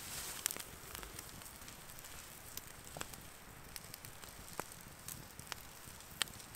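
Wood campfire crackling, with scattered sharp pops about once a second over a soft steady hiss of chicken and asparagus sizzling on a grill over the flames.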